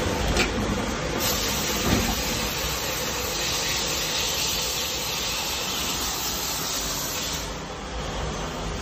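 A steady hiss inside a Haas ST-20 CNC lathe cell, as its enclosure stands open for robot part loading. The hiss runs for about six seconds and stops near the end, after two short knocks in the first two seconds.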